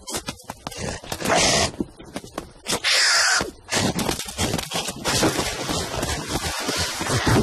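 Slapstick cartoon chase sound effects: short whooshing rushes in the first half, then a continuous fast scraping, skidding noise as the chase speeds past.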